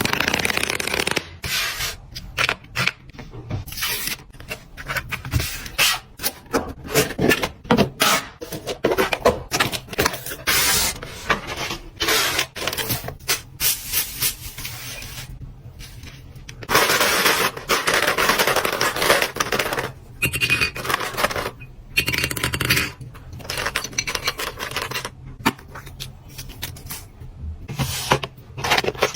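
Fingernails tapping fast and hard on packaging: rapid runs of sharp clicks, broken by stretches of scratching and rubbing on the surface.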